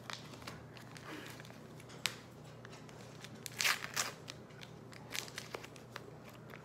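Plastic wrapper of an ice cream sandwich being slowly crinkled and torn open, in short crackles. There is a sharp snap about two seconds in and the loudest rustle at about three and a half to four seconds.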